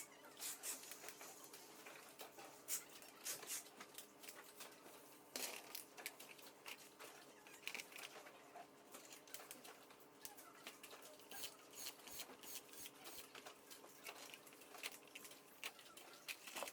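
Faint, irregular clicks and taps of small parts being handled, over a faint steady hum.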